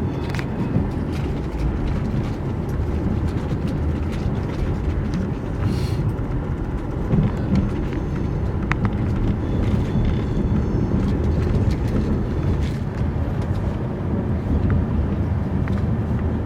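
TGV Lyria high-speed train running, a steady low rumble with scattered light clicks and rattles.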